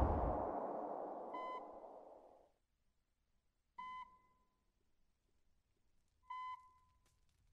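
The tail of an explosion rumbling and dying away, then a hospital patient monitor beeping steadily: a short single-pitch beep about every two and a half seconds, three beeps in all.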